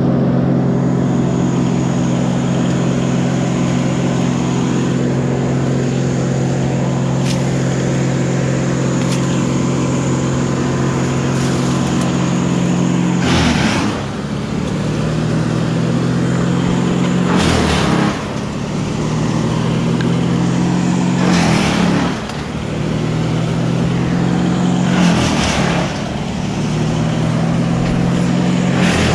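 A large engine running steadily. From about halfway through it loads down about every four seconds, each time with a short burst of harsh, rasping noise, then picks back up.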